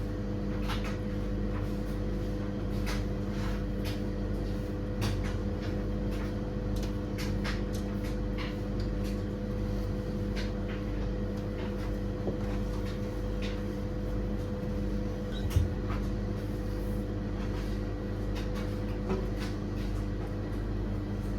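A steady low hum made of several fixed tones over a rumble, with scattered light clicks and knocks throughout.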